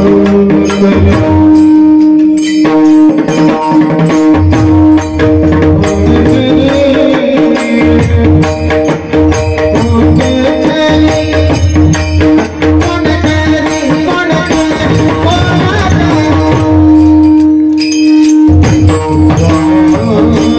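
Marathi devotional music: a singer's drawn-out alap over a steady held drone, with a drum and jingling percussion keeping time.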